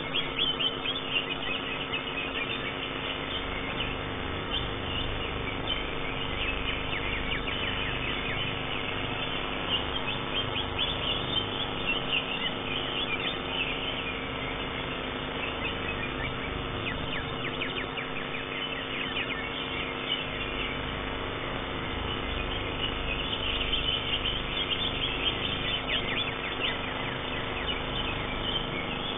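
Greater green leafbird (cucak ijo) singing in contest: rapid runs of high chirps and trills in several spells with short pauses between them, over a steady low hum.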